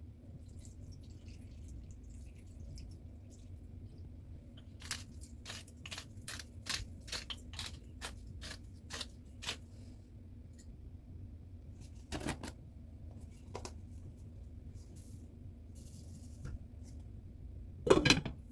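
Kitchen utensil taps over a low steady hum: a run of about ten sharp taps at roughly two a second, then a couple of single knocks and a louder clatter near the end.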